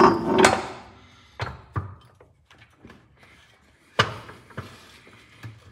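A jack being manoeuvred under a transmission: a few sharp metal knocks and clunks with quiet gaps between them, the loudest about four seconds in.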